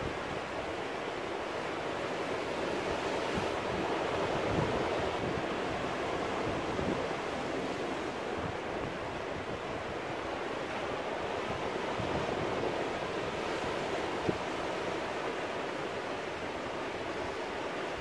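Ocean surf breaking and washing over rocks: a continuous rush that swells and eases slowly every several seconds.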